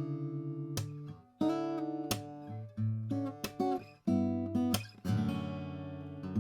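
Atkin L36 (The Thirty Six) acoustic guitar, with a Sitka spruce top, mahogany back and sides and phosphor bronze strings, played fingerstyle. Plucked notes and chords come in short phrases with brief breaks, and about five seconds in a full chord is struck and left to ring.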